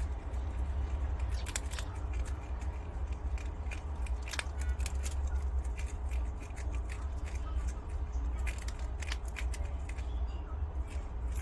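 Prairie dogs chewing crumbly green food held in their paws: an irregular string of small crisp crunches and clicks, over a steady low hum.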